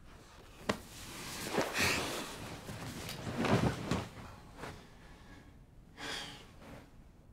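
A man breathing heavily, with a few loud breaths a couple of seconds apart.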